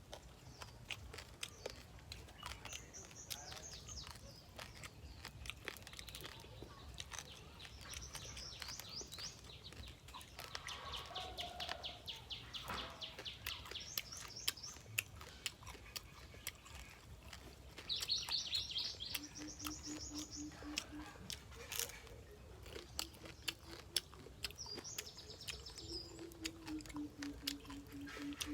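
Fried stone crab being eaten: a steady run of sharp cracks and crunches from the crisp fried shell. Small birds chirp in short high trills in the background, and a low wavering hum-like tone comes in during the last few seconds.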